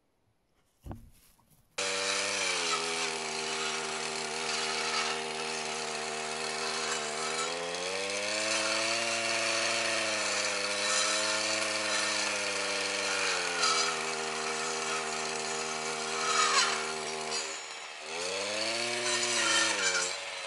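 Two-stroke chainsaw running at high revs, starting abruptly a couple of seconds in. Its pitch climbs and holds higher for several seconds midway, then dips and swells up and down again near the end. A single sharp knock comes just before it starts.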